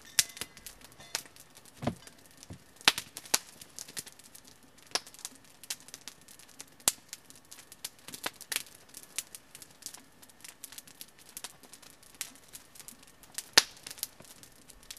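Wood campfire crackling with irregular sharp pops scattered throughout, and a dull thump about two seconds in.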